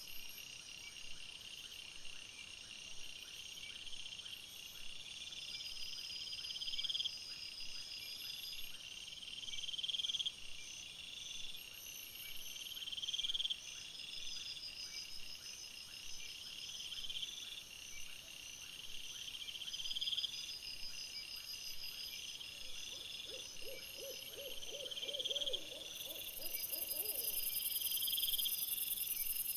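Cricket-like night insects trilling, a high phrase that swells and stops about every two seconds. About three-quarters of the way through comes a short run of rapid, lower-pitched pulses, and near the end a high hiss sets in.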